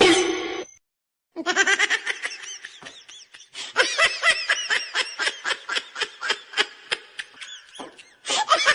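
High-pitched laughter in a long, fast run of short laughs, starting about a second and a half in, with a brief break near the end before it picks up again.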